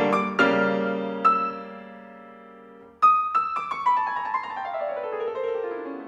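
Background solo piano music: a chord rings and slowly fades, then a new phrase starts about halfway through with a run of notes stepping downward.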